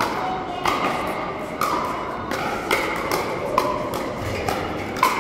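Pickleball rally: paddles striking the hollow plastic ball with a sharp pock, about one hit a second, each hit ringing briefly in the large hall.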